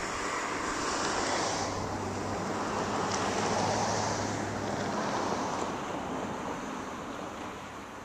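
A passing vehicle: a rushing noise with a steady low hum that swells to a peak about halfway through and then fades away.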